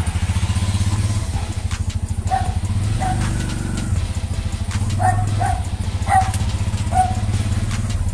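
Motorcycle-tricycle engine running as it drives, a steady low rhythmic pulsing heard from inside the cab. Several short high yelps sound over it between about two and seven seconds in.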